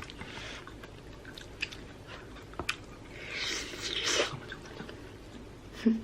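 A person chewing a mouthful of food, with small clicks from eating, and a soft rushing sound about three to four seconds in.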